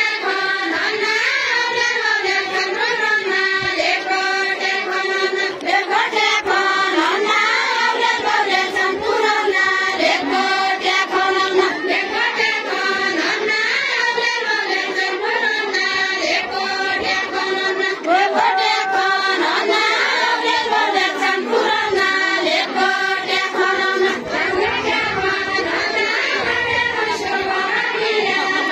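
Group of women singing a Deuda folk song together, a continuous chorus of voices without a break.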